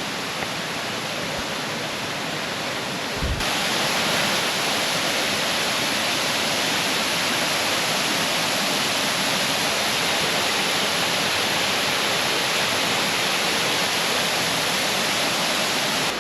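Waterfall: a steady rush of falling water. About three seconds in, after a brief low bump, it jumps louder and brighter.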